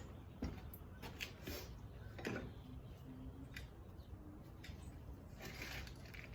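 Faint, scattered clicks and light knocks of small objects being handled and set down, about half a dozen, over a low steady room hum.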